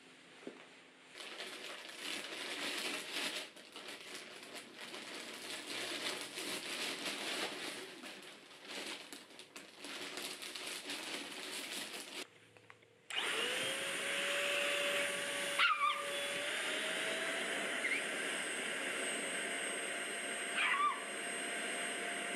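An uneven rushing noise, then after a break a small household electric motor starts and runs steadily, its whine rising and settling higher. A dog gives a few short falling whines over the motor.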